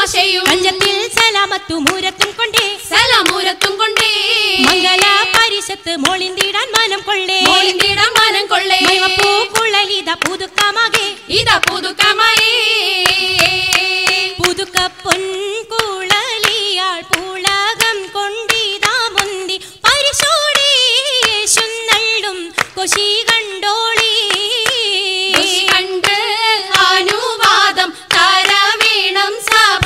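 Oppana music: a sung melody over rhythmic hand clapping that keeps time with it.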